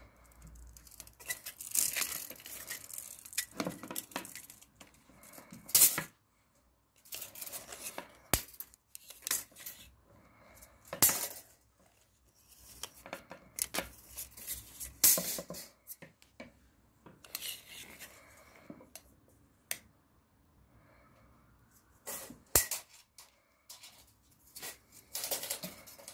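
Packaging and hard plastic parts being handled, heard as irregular bursts of rustling and tearing with sharp clicks and knocks scattered through. The hair dryer is not running.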